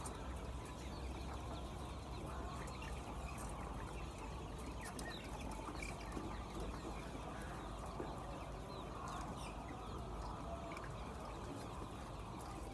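A flock of laying hens clucking and calling together, many small overlapping calls at once, over a steady low hum.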